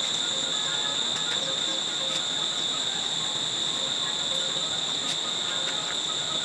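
Insects droning steadily at one high pitch, with a few faint clicks from hand work on a motorbike.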